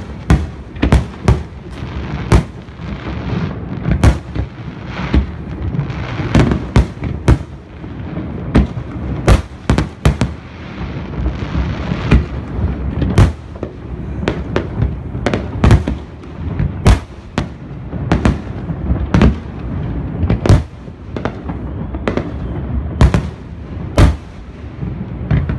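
Aerial fireworks display: dozens of shell bursts banging in quick, irregular succession over a continuous low rumble of further bursts.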